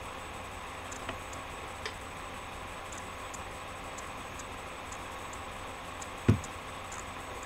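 Light ticking, about once a second, over a steady hiss, with a single dull thump about six seconds in.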